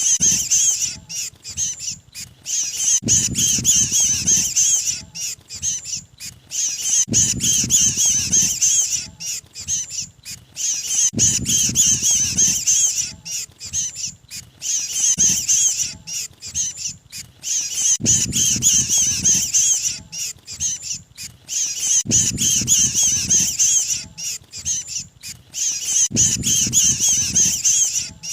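Lure recording of a mantenan bird's harsh, high-pitched chattering distress call (the 'kejepit', trapped-bird call), looped in bursts of a few seconds that repeat about every four seconds, with a low rumble under each burst.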